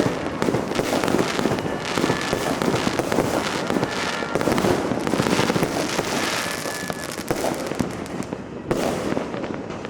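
Dense New Year fireworks and firecrackers going off continuously: many overlapping bangs and crackles with no gap, thinning slightly near the end.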